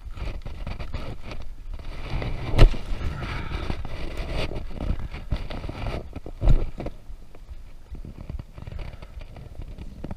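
Irregular knocking and scraping on a small boat, over a low rumble, with two sharp loud thumps about two and a half and six and a half seconds in.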